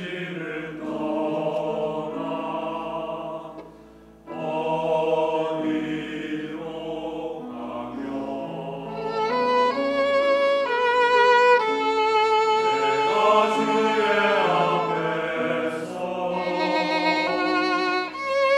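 Mixed church choir singing a slow Korean sacred anthem with violin accompaniment, with a brief break between phrases about four seconds in. In the second half a violin playing with vibrato comes to the fore alongside the voices.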